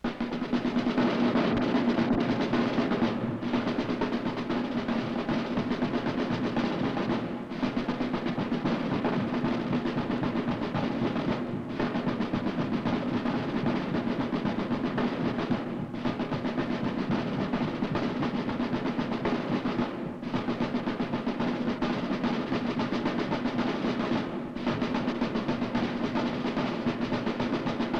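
Marching band drum line playing a rolling drum cadence of snare and bass drums, a phrase that repeats about every four seconds.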